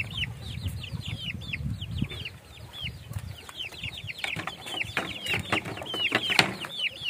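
Half-grown chicks peeping over and over: short high chirps that fall in pitch, several a second. A few light knocks in the second half.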